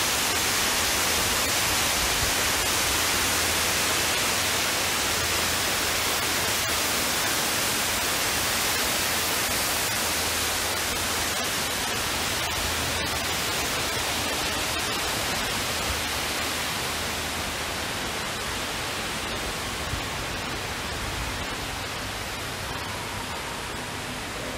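Steady rushing noise of a tall indoor waterfall, slowly growing fainter.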